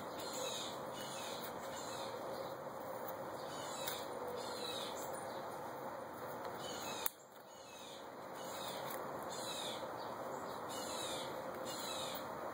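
A bird calling over and over in short falling chirps, over a steady hiss. A single sharp click comes about seven seconds in.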